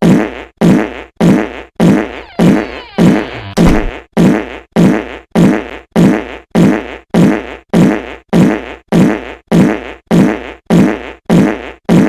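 Fire alarm sounding: a buzzy horn blast repeated just under twice a second, each blast dropping in pitch.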